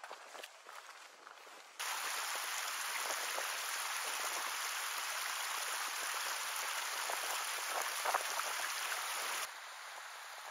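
Small mountain meltwater stream running over rocks: a steady rush of water that starts abruptly about two seconds in and drops to a quieter hiss near the end.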